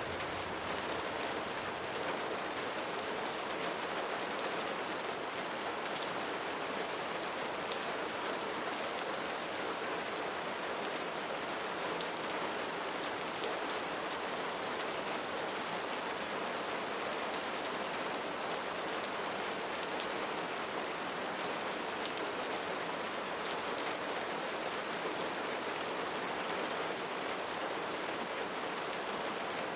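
Steady rain falling on leaves, an even hiss with scattered individual drop ticks.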